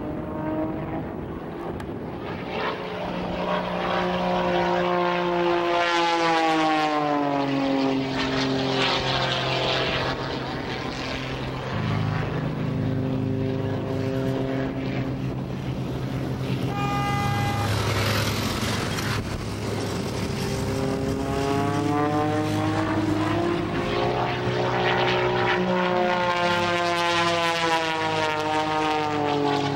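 Pitts S-2S aerobatic biplane's six-cylinder Lycoming engine and propeller in an aerobatic display. The engine note rises, then sweeps down as the plane passes, twice, with a steadier lower drone in between.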